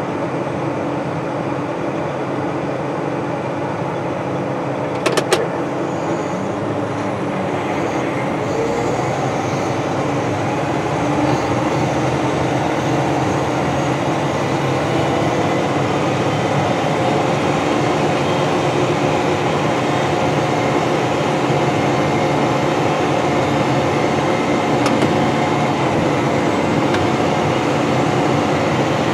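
Steady engine drone of a John Deere 9420R four-wheel-drive tractor pulling a grain cart, heard from inside its cab. A couple of sharp clicks come about five seconds in, and the drone grows a little louder about eleven seconds in.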